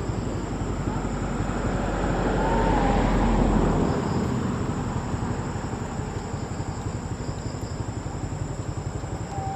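A motor vehicle's engine and tyres rumble, growing louder to a peak about three and a half seconds in and then easing off, as if passing close by. A couple of faint short high chirps come over it.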